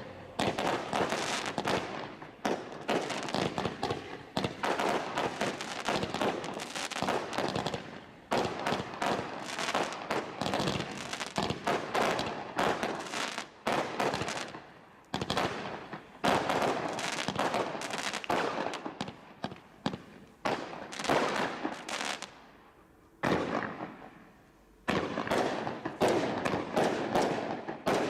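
Firework barrage cakes firing in rapid volleys, a dense string of sharp cracks and bangs with short pauses between bursts and a longer lull near the end.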